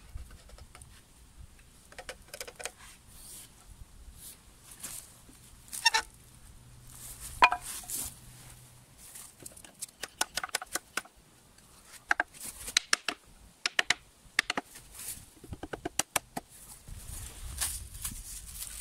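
Wooden slats clacking and knocking as they are set upright into a wooden jig, in irregular runs of sharp clicks with two harder knocks about six and seven and a half seconds in. Dry reed stalks rustle near the end.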